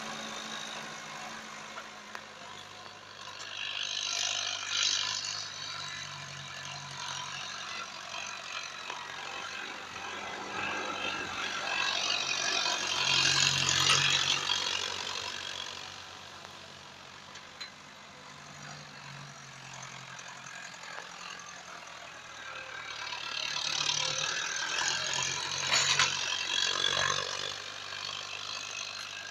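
Massey Ferguson 285 S tractor's diesel engine working under load as it pulls a plough through the soil. The sound swells three times as the tractor comes close and fades between passes.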